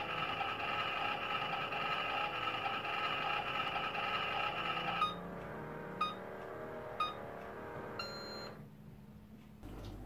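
Redbox 'in home' electronic toy microwave oven playing its simulated cooking sound, a steady electronic hum, which stops about five seconds in. It then beeps four times about a second apart, the last beep a little longer, marking the end of the cooking cycle.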